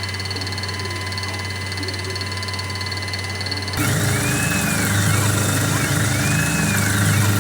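A machine tool running steadily, machining metal stock down. About halfway through it gets louder, and a whine rises and falls over and over, about once a second.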